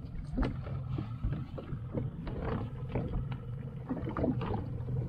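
Small fishing boat at sea with a steady low engine hum, and water splashing and knocking irregularly against the hull.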